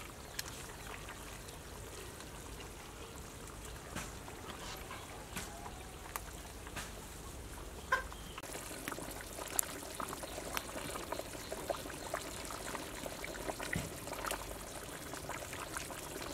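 Metal ladle scooping braised beef and broth from a large pot and pouring it into a smaller pot: liquid trickling and dribbling, with occasional light clinks of the ladle against the pots.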